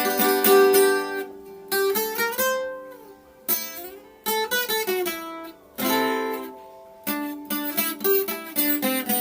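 Acoustic guitar being played: strummed chords and picked single-note phrases, with a few notes sliding in pitch and short pauses between phrases.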